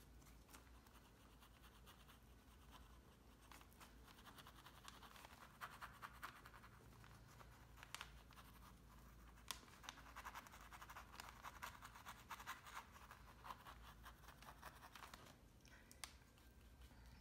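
Faint scratchy scrubbing of a paintbrush's bristles dry-brushing acrylic paint over a stucco-medium texture, with quick back-and-forth strokes. It is busiest through the middle and eases off near the end.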